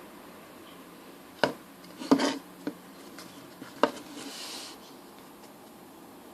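Handling of Skifidol toy slime and its plastic pot: a few sharp clicks and knocks, the loudest about two seconds in, then a short hiss.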